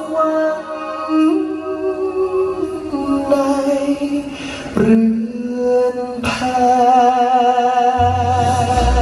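A male singer sings a slow song live over soft band accompaniment, holding long notes with a wavering vibrato in the second half. Deep bass notes come in near the end.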